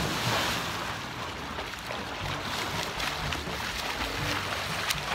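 Swimming-pool water splashing and churning as swimmers who have just dived in thrash across the pool, heard as a steady rush of noise.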